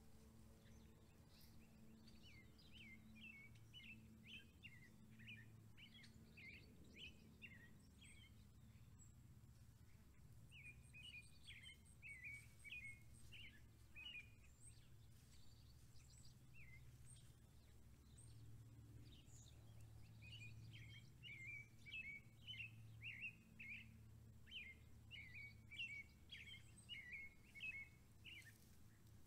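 Faint songbird singing in several phrases of quick, high chirping notes, over a faint steady low hum.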